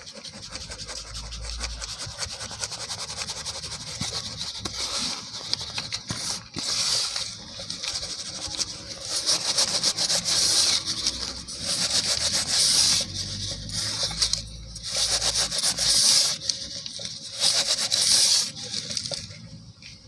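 Dry cement powder rubbed and sifted through fingers in a plastic bowl, a soft continuous hiss, then poured out into a metal basin in a series of louder hissing surges from about a third of the way in.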